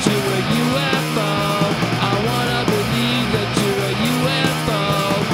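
Garage punk rock band playing a demo recording, with guitar over a steady bass line.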